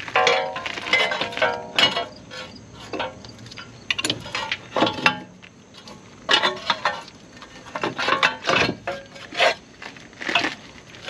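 Metal hand tools clinking and clattering as they are handled: a string of separate knocks, some ringing briefly at first.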